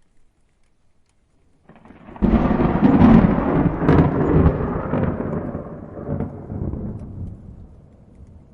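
A thunderclap: after about two seconds of quiet it builds briefly, then breaks into a sudden loud crash with sharp crackling cracks, and rolls on as a low rumble that fades away over the next five seconds.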